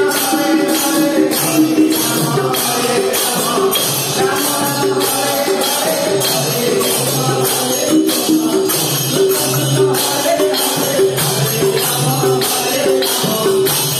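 Devotional bhajan music with a steady jingling metallic beat of about two to three strokes a second, low drum notes and a held melody line.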